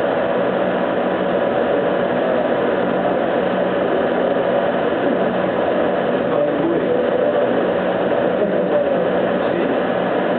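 Laser cutter running while cutting, giving a steady, unchanging mechanical whir with a faint wavering hum in it.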